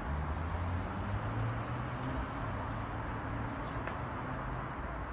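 Steady low rumble of station and city background noise with a low hum, and no train passing yet.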